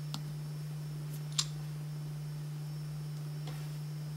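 A steady low hum, with a few light clicks and one sharper click about a second and a half in: a finger pressing the iPhone's home button to wake the phone.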